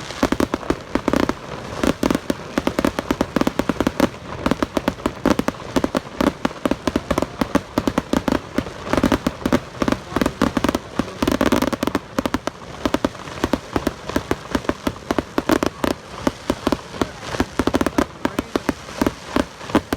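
Consumer fireworks going off in a dense, continuous volley of sharp pops and crackles, several a second, without a break.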